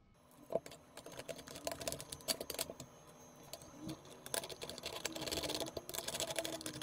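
Quiet, irregular clicking and rattling of small metal parts as the soldering station's metal side panel is fitted back onto the enclosure, the clicks coming thicker in the second half.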